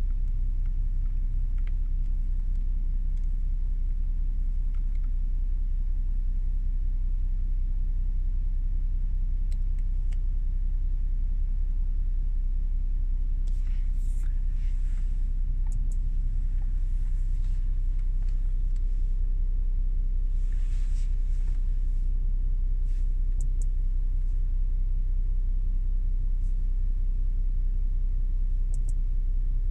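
Audi S7's engine idling, a steady low rumble heard from inside the cabin, with a few faint clicks and rustles midway.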